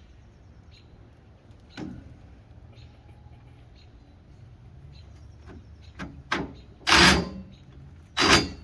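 Light clicks and handling of parts, then two short loud bursts of a power drill near the end, making a new mounting hole for a side marker light.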